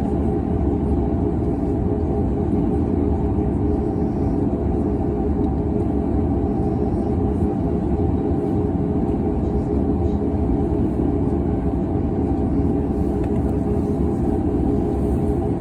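Steady low mechanical rumble with a constant hum during aircraft de-icing, even in level throughout.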